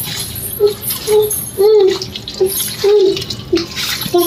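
Wet squelching of a bare hand kneading raw chicken pieces in a curd marinade on a steel plate, with a short squelch about twice a second.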